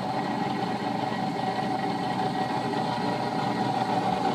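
Hammond OK-12 three-phase double-ended pedestal grinder running steadily at speed, spinning nice and smooth: a sign of good bearings.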